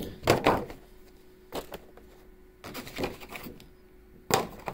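Scattered knocks and clicks of a board game box's plastic insert and cardboard pieces being handled, with a sharper, louder click near the end.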